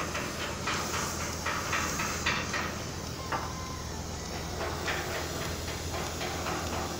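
A cargo ship's engine runs with a steady low hum under irregular short knocks and clatter, about two a second.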